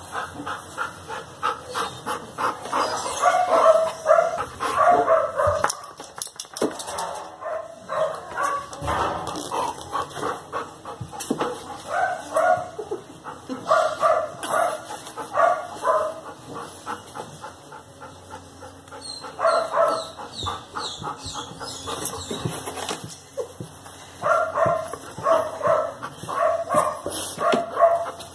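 A dog barking in runs of short barks, about two a second, with quieter pauses between the runs.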